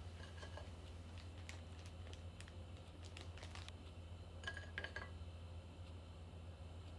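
Light clicks and clatter of crockery being handled at a kitchen sink, with a few ringing clinks of dishes about four and a half seconds in, over a steady low hum.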